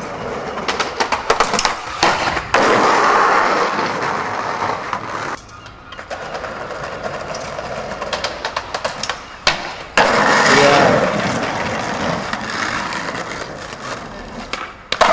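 Skateboard wheels rolling on tarmac, with sharp clacks and knocks of the board on tricks and landings. The sound changes abruptly a few times.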